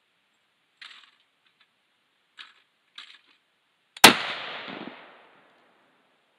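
A few faint clicks, then about four seconds in a single loud shot from a Browning X-Bolt bolt-action rifle in .280 Remington, the report echoing and dying away over about a second.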